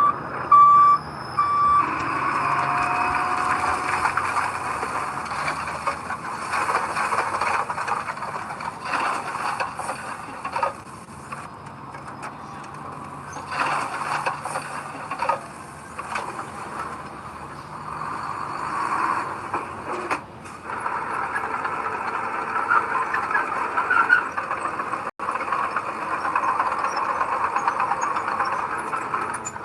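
A vehicle reversing alarm beeping about twice a second, stopping about two seconds in. Then heavy earthmoving machinery runs with a loud, continuous squealing that swells and fades.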